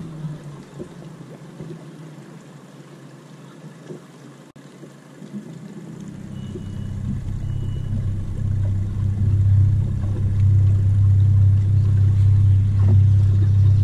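A boat motor's low, steady hum that is faint at first and grows steadily louder through the second half. Two short high beeps come about halfway through.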